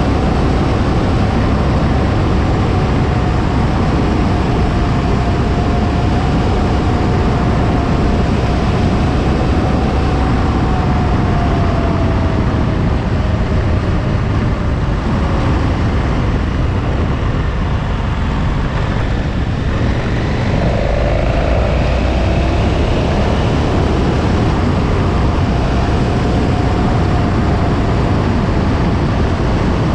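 KTM 1290 Super Adventure motorcycle at road speed, heard as heavy wind noise on the microphone with the V-twin engine running underneath. The engine note eases down about halfway through and picks up again a few seconds later.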